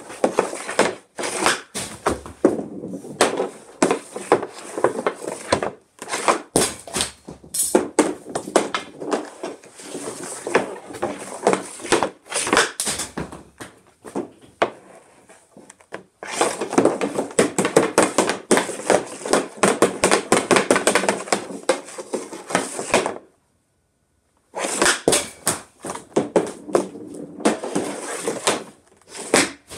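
CCM Ribcor Trigger 7 Pro hockey stick blade working pucks on plastic dryland shooting tiles: rapid clattering clicks and knocks of blade and puck on the tiles, with the snaps of shots. It stops for about a second and a half about two-thirds of the way through.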